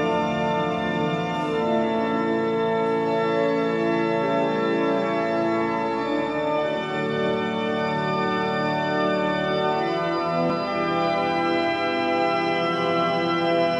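Organ music: slow, held chords whose notes change every second or two.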